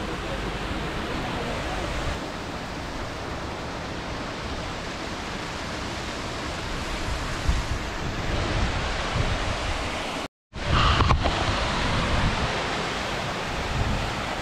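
Steady hiss of wind and rain with wind buffeting the microphone. It cuts out for a split second about ten seconds in and returns with heavier buffeting.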